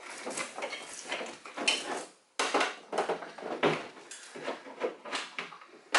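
Irregular clunks, scrapes and rattles of hand tools and plastic trim being worked on around a car's seatbelt anchor, with a brief break a little over two seconds in.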